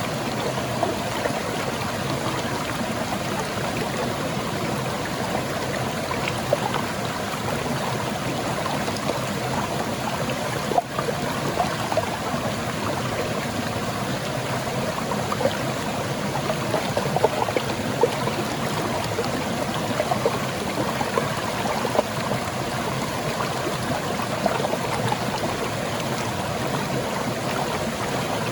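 Water of a small rocky waterfall pouring and splashing over stones, a steady rushing babble with small splashes scattered through it.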